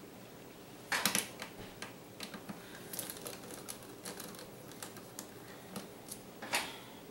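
Light irregular clicks and taps of a small screwdriver and tiny laptop screws being handled, with a louder click cluster about a second in and another near the end.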